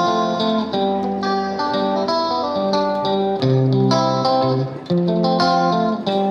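Background music led by a plucked guitar playing a steady, repeating pattern of notes.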